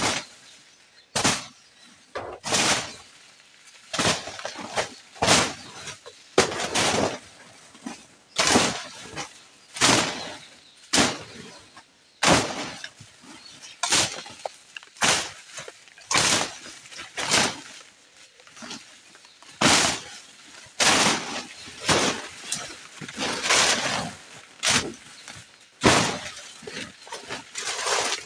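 A hand blade clearing brush and old banana plants: irregular sharp strokes, roughly one a second and some in quick pairs, each a short swish and rip of cut vegetation.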